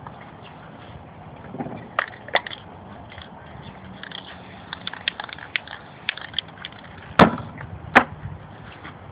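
Aerosol spray-paint cans and tools handled on a tabletop: a run of light clicks and taps, then two sharp knocks about a second apart near the end.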